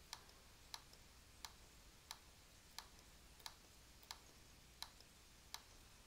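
Faint computer mouse button clicks, evenly spaced at about three every two seconds, as gradients are dragged one after another across the canvas.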